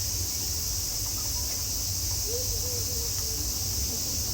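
Steady high-pitched drone of summer cicadas over a low background rumble, with a faint wavering call about two seconds in.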